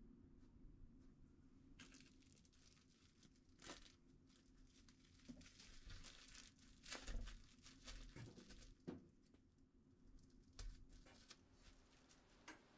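Plastic cling film crinkling and rustling as it is folded tightly around a sandwich, faint, in irregular crackles, loudest about seven seconds in.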